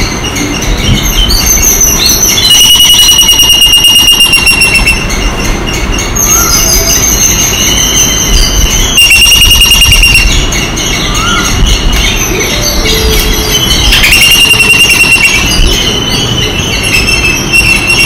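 Shrill, high trilling animal calls come in runs of two to three seconds, with a few short rising chirps between them. A steady low rumble of background noise runs underneath.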